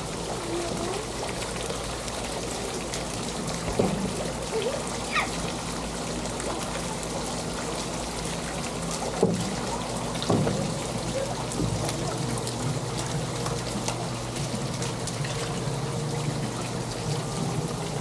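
Water running, trickling and splashing in an outdoor water play table, a steady pour from its spouts and fountain, with a few brief knocks.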